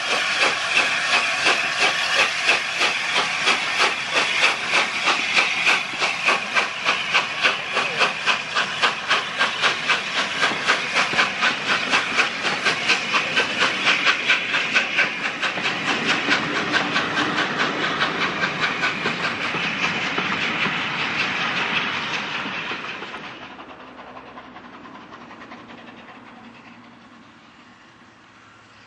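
LNER A4 Pacific 60019 'Bittern', a three-cylinder steam locomotive, passing close at speed: a fast, even exhaust beat over steady steam hiss, running on as its coaches roll by. About 23 seconds in this gives way to the much quieter sound of another steam train approaching in the distance.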